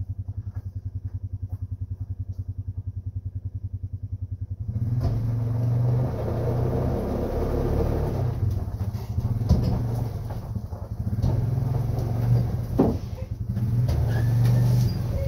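A vehicle engine idling with an even pulse, then about five seconds in it gets louder and busier, running at more throttle, with a couple of sharp knocks in the second half.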